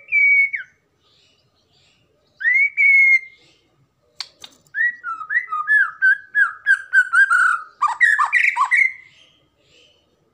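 White-rumped shama (murai batu) singing: two loud, clear whistled notes that rise and hold, then a fast run of repeated notes at about four a second, ending in a burst of rougher, varied notes.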